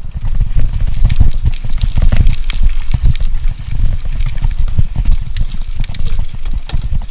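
Mountain bike ridden over a bumpy dirt forest trail: a steady low rumble with a dense run of clicks and rattles from the bike as it jolts over the ground.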